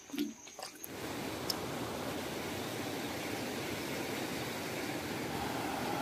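A few faint clicks, then about a second in a steady rush of river water flowing over rocks starts abruptly.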